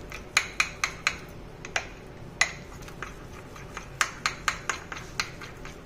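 Metal spoon stirring a thin flour-and-water batter in a small glass bowl, clinking against the glass in quick irregular taps, with a short lull in the middle. The stirring is working out lumps in the batter.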